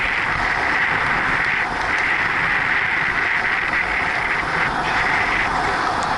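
Steady rush of wind on a Sony HDR-AS30V action camera's microphone on a bicycle moving at about 43 km/h, mixed with the hiss of the tyres on the asphalt.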